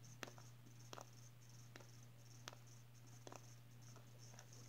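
Near silence: a few faint, scattered clicks and rubs of fingers squeezing and handling a plastic squishy owl pen, over a steady low hum.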